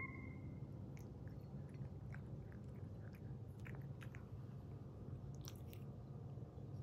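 Tabby cat chewing dry kibble: faint, scattered crunches.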